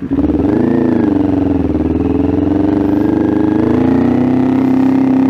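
Kawasaki Ninja 400's parallel-twin engine through an SC Project aftermarket exhaust, running loud under way. The pitch dips and swells about a second in, then holds fairly steady with a slight rise near the end.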